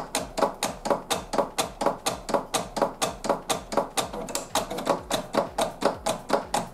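Electronic cutting machine (a cutting plotter for masking sheet) clicking rapidly and evenly, about five or six clicks a second, as it adjusts its blade before cutting.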